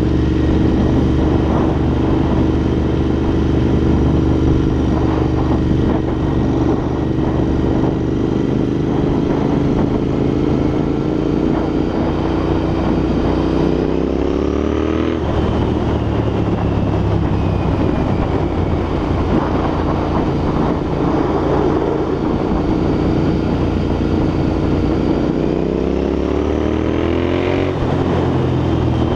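Royal Enfield INT650's 648 cc parallel-twin running through aftermarket Red Rooster exhausts while riding, with wind noise on the microphone. The engine pitch climbs and drops sharply about halfway, holds, then climbs and drops again near the end: two upshifts under acceleration.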